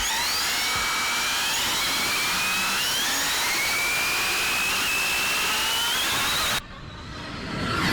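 Electric RC car's brushless motor and drivetrain, geared with a 25-tooth speed pinion, whining at full throttle, its several tones climbing steadily in pitch as the car accelerates, over loud wind and road hiss. About six and a half seconds in, the sound drops abruptly to a quieter one that swells again near the end.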